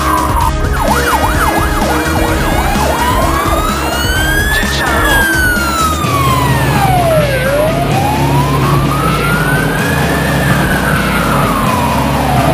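Fire engine siren: a brief fast yelp, then a slow wail that rises and falls about every five to six seconds, over the low rumble of the truck's engine. An earlier siren tone cuts off abruptly about half a second in.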